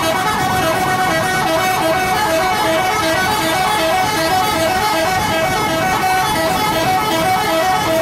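Bus telolet horn, the multi-tone musical horn of an Indonesian intercity coach, playing a quick tune of short alternating notes that repeats over and over.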